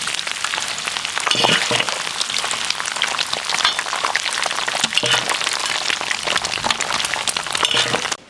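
Potatoes frying in rendered lamb fat-tail fat, sizzling and crackling steadily with a few louder swells, then cutting off suddenly near the end.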